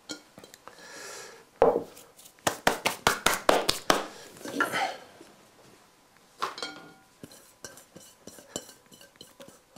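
Kitchen bowls and utensils clattering as they are handled: a ceramic mixing bowl put up on the worktop and a glass bowl picked up. A quick run of sharp knocks comes about two seconds in, one sharper knock follows past the middle, and lighter clinks come near the end.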